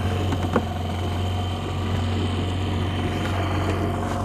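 Boat motor running steadily, a low even drone.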